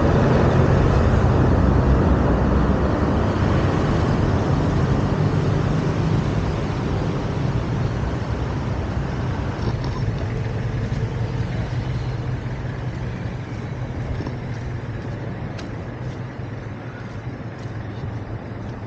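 Heavy vehicle engine running, loud at first and slowly fading, with a steady low hum.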